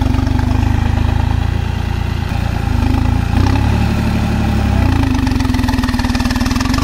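Massey Ferguson tractor's diesel engine running under load while pulling a disc harrow through soft soil. The engine note deepens and gets louder about three and a half seconds in as it works harder.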